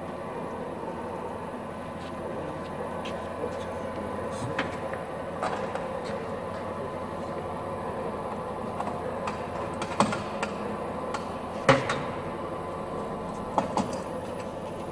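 Automatic dumpling-making machine running with a steady mechanical hum. Scattered clicks run through it, with a few sharper knocks in the second half.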